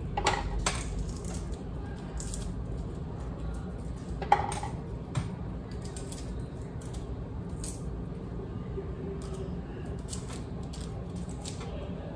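Paring knife clicking and scraping as garlic cloves are peeled over a wooden cutting board, with scattered light ticks and one sharper knock about four seconds in. A steady low hum runs underneath.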